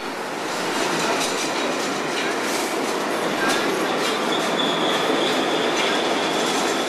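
New York City subway train running past a station platform, its wheels clattering over the rail joints with a steady rumble. A thin, high wheel squeal sounds through the middle of the passage.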